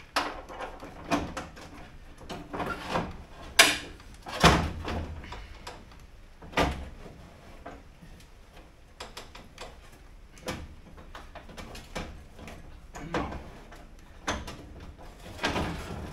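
Metal knocks, clunks and rattles from a Toyota Corolla KE20's bare steel door as the window regulator mechanism inside it is lowered and worked into place. The sharpest knocks come about three and a half, four and a half and six and a half seconds in.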